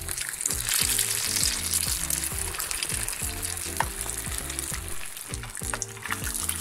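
Beer-battered sea bass fillets deep-frying in a pan of hot oil, sizzling steadily as they are turned with a wooden fork. Background music with a steady beat plays underneath.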